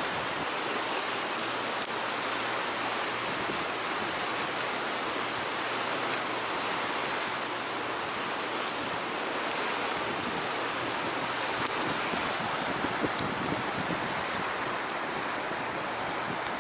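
Fast, turbulent floodwater of a river in spate, churning and breaking into white water over a submerged railing: a steady rushing of water.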